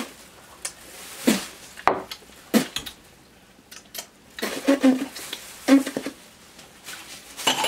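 Small clatters and rustles of snack wrappers, plastic cups and bottles being handled on a table, with a few short hummed voice sounds about halfway through.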